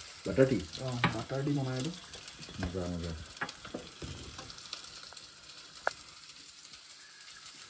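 Onions sizzling in hot mustard oil in a kadai, stirred with a spatula that clicks and scrapes against the pan now and then.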